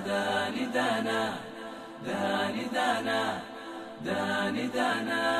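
Background music: unaccompanied chanted vocals over a low held tone, sung in phrases with short dips about two and four seconds in.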